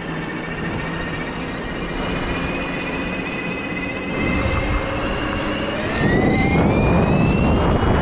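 Bafang BBS-HD mid-drive motor whining under throttle on a 72 V setup, its pitch climbing steadily as the bike speeds up. About six seconds in the whine climbs faster and gets louder, and a rushing noise swells with it.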